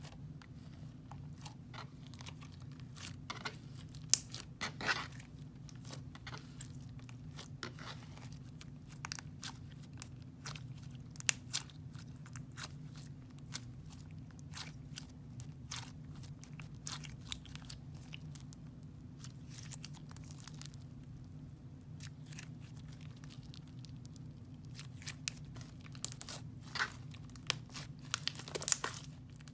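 Floam slime packed with foam beads being squeezed and worked by hand, the beads giving scattered crackles and pops that grow busier and louder near the end, over a steady low hum.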